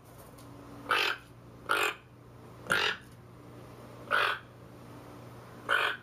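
Toucan calling: five short harsh calls at irregular gaps of about a second, over a faint steady hum.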